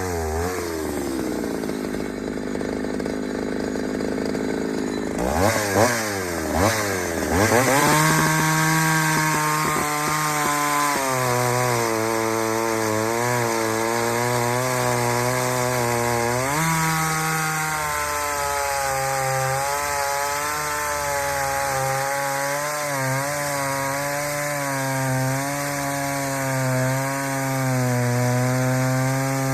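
Ported Pioneer two-stroke chainsaw dropping to idle, blipped up and down about three times, then held at full throttle in a cut from about eight seconds in, its pitch sagging and recovering under load. This is a test run after a carburetor swap, and the owner thinks the muffler is holding the saw back.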